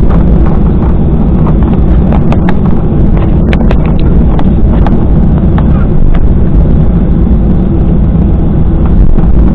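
Loud, steady rumble of a jet airliner heard from inside the cabin during takeoff: engines and airframe noise, with scattered short clicks and knocks.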